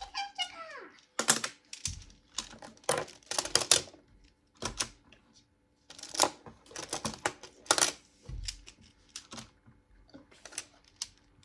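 Plastic magnetic building tiles clicking and clacking together as they are snapped into place and handled, in irregular clusters of sharp clicks.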